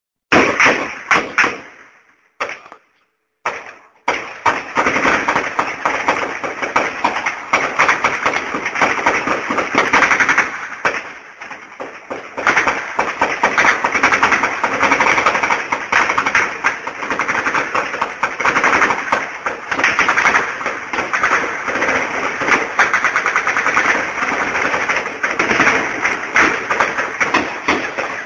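Heavy automatic gunfire: a few short bursts, then a near-continuous rattle of rapid shots from about four seconds in, easing briefly around the middle.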